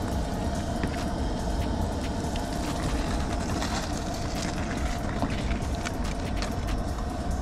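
Small whole fish frying in hot oil in a skillet on a Coleman camp stove: a steady sizzle with scattered crackles over a steady low rumble.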